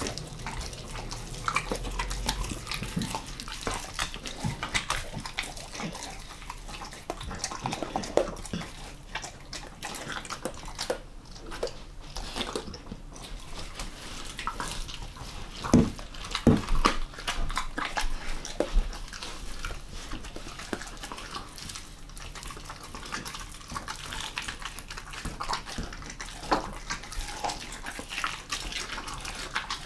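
A German Shepherd mix chewing and licking raw monkfish: wet smacking and squelching with scattered clicks of teeth, and a few louder clicks about halfway through.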